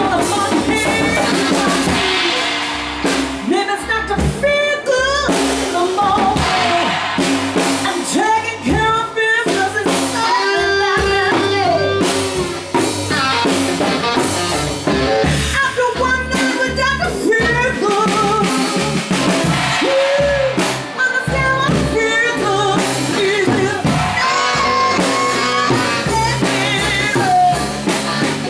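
A live band plays a blues-rock groove on drum kit, bass and guitar, with a wavering lead melody over it.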